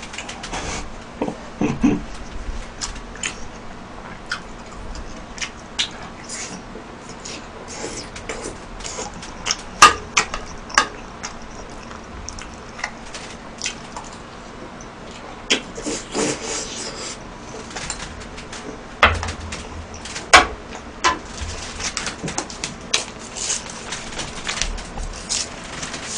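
Close-miked eating: a person chewing mouthfuls of beef rice bowl, with sharp clicks of a metal spoon against a plastic takeout container. Near the end, a paper chopstick sleeve rustles as the chopsticks are pulled out.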